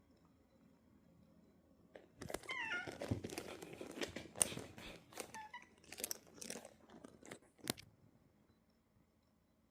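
A cat fussing: a couple of seconds in, a run of scuffling and rustling starts, broken by short falling chirp-like cries. It stops a little before the end.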